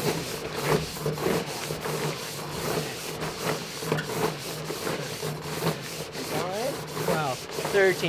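Plastic pouch of two-part Sika PostFix post-setting foam rubbed hard back and forth against the vinyl siding at the corner of a house, in fast repeated scraping strokes, with a few squeaks near the end. This is the vigorous rubbing that mixes the two components after the pouch's inner seam has been burst.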